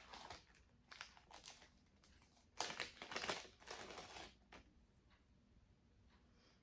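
Faint rustling and crinkling of jewelry and its packaging being handled, a string of short rustles that is loudest about three seconds in and dies away after about five seconds.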